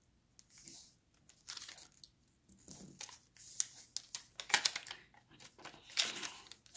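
A square of origami paper being folded and creased by hand: irregular spurts of rustling and crinkling with sharp crackles, louder in the second half.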